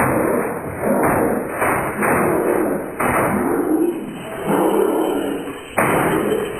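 Heavily slowed-down water-drop sound effects, heard as a string of deep, sudden thuds, each with a ringing pitched tail that fades before the next one lands.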